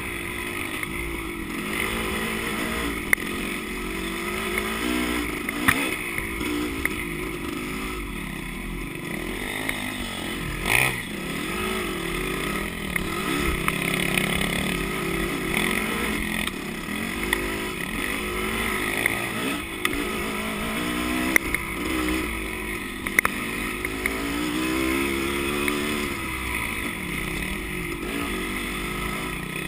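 Dirt bike engine running under way, its pitch rising and falling again and again with the throttle. Scattered sharp clicks run through it, with a louder knock about eleven seconds in.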